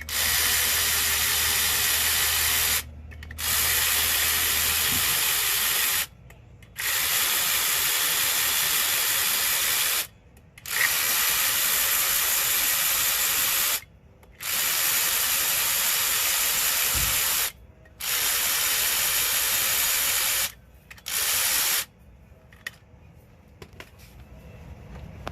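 Compressed-air tool run in about seven bursts of a few seconds each, a steady loud hiss of exhausting air, loosening the flywheel bolts of a BMW S85 V10.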